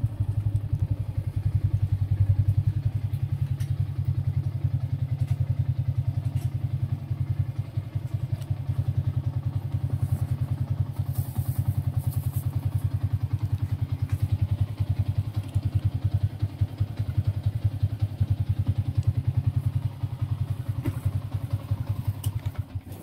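Small motorcycle engine running steadily with a fast, even putter, cutting out near the end.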